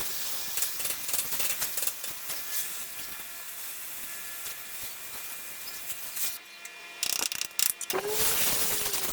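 Oxy-acetylene cutting torch hissing with a scattered crackle as it burns out a frame rivet. It dips briefly about two-thirds of the way through and comes back louder near the end.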